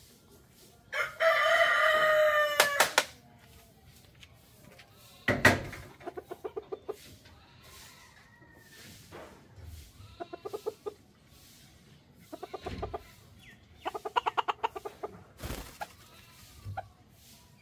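A rooster crows once, about a second in, a loud call lasting about two seconds. After it come several short runs of rapid clucking, with a couple of sharp knocks among them.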